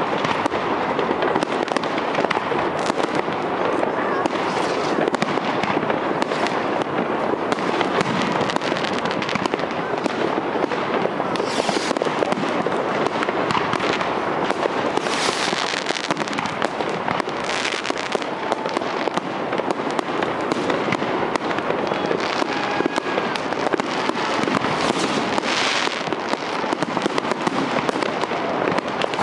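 Aerial fireworks display: a dense, continuous run of shell bursts, bangs and crackling, with several louder crackling bursts standing out.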